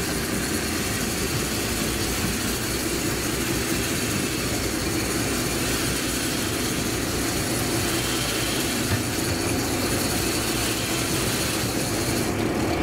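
Fishing boat's engine running steadily under a continuous rushing noise.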